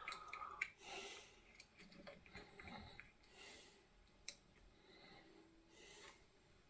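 Faint handling of the lamp switch and its wires: soft rustles and light clicks, with one sharp tick about four seconds in.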